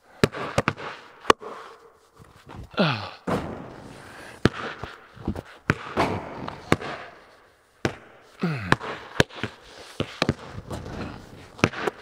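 Basketballs bouncing on a concrete floor and banging off the backboard and rim, a run of sharp, irregular smacks that echo around a large, empty metal-sided barn.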